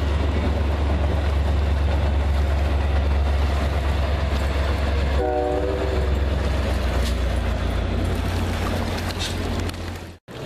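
Passenger train with double-deck cars running past, a steady low rumble, with one short horn blast about halfway through. The sound cuts off near the end.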